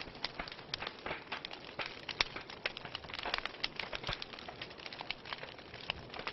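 Wood fire burning in a fireplace, crackling with many irregular sharp pops and snaps over a soft steady hiss.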